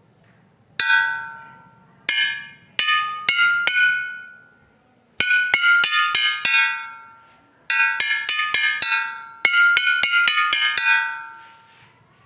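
Bottles filled with liquid to different levels, struck one after another. Each gives a clear ringing note at its own pitch, set by how much liquid it holds. A few single strikes come first, then quicker runs of notes up and down the bottles.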